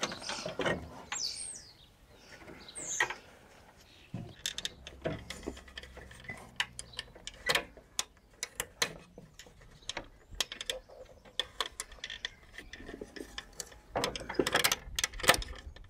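Plastic bumper bracket strip on a VW T4 being worked loose by hand and pulled off the metal bumper bar. It gives a run of irregular plastic clicks, creaks and knocks, thickest near the end as it frees from the barb that clips it into a hole in the bar.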